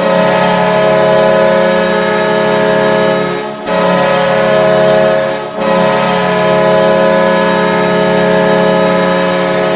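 Goal horn blaring loudly in three long blasts, a steady many-toned blare, with short breaks about three and a half and five and a half seconds in.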